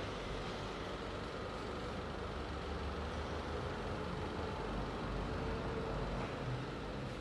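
Steady machine noise with a low rumble and a faint steady hum, unchanging throughout.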